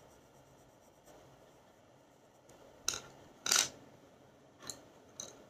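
Staedtler Mars graphite pencils being handled at a desk: faint pencil shading on paper, then two short scratchy sounds about three seconds in, with two fainter taps near the end.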